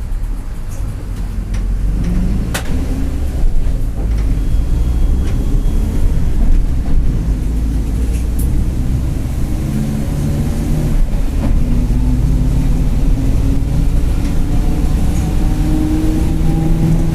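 Mercedes-Benz OF-1721 bus under way, its diesel engine running with a steady low rumble. From about ten seconds in a whine climbs steadily in pitch as the bus picks up speed: the growling differential ("diferencial roncando") the bus is known for. A sharp click about two and a half seconds in.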